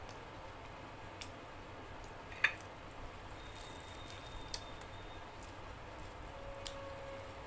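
Hand-eating sounds: fingers tearing a luchi and handling food, with a few sharp small clicks, the loudest about two and a half seconds in, over a steady low hum.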